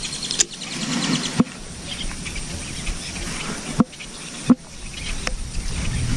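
Fishing rod and reel being worked during a lure retrieve: a brief run of fast, light reel ticks near the start, then several sharp, separate clicks and knocks from handling.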